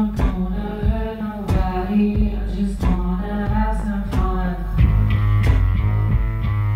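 A woman singing live into a handheld microphone over an electronic backing with a steady beat, through a club PA. About five seconds in the voice stops and an instrumental riff over a held bass note carries on.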